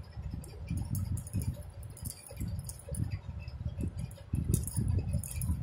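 Hands crocheting wool yarn with a crochet hook close to the microphone: irregular low rumbles from handling, with many light quick clicks and ticks.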